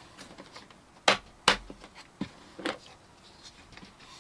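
Snap latches of a clear plastic carrying case clicking open, two sharp clicks about half a second apart, followed by two fainter clicks as the lid is opened.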